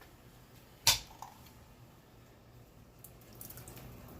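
A single sharp knock of a kitchen item, such as a jar or utensil against a pot, about a second in, followed by a faint tap and a few light clicks near the end.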